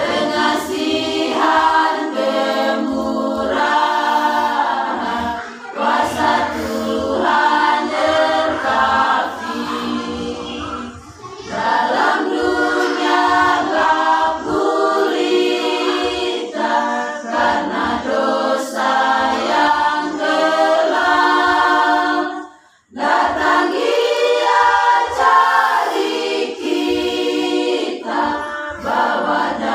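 Women's choir singing a cappella in several-part harmony, in long phrases with brief breaks between them; the longest break, about 23 seconds in, drops almost to silence before the singing resumes.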